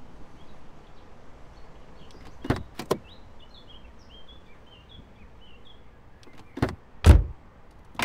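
Car door sounds: two short clicks about two and a half seconds in, then more knocks and a heavy, deep door thud about seven seconds in, the loudest sound. Birds chirp softly in the background.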